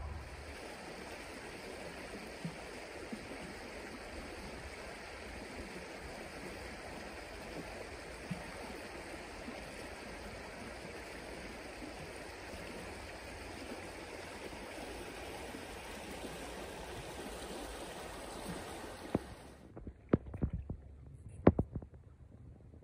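Steady rush of a small stream's current flowing over a riffle. It stops suddenly near the end, and a few short, sharp knocks follow.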